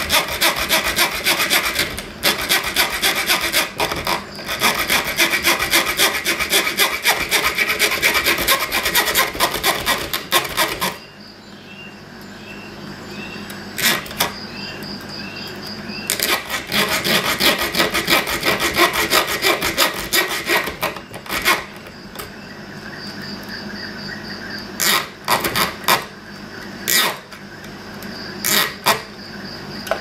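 Saw blade of a Leatherman Super Tool 300 EOD multi-tool cutting a thin metal tube held in a bench vise, in fast back-and-forth rasping strokes. The sawing runs for about ten seconds, stops, and resumes for about five more seconds. Then come several separate knocks and taps near the end.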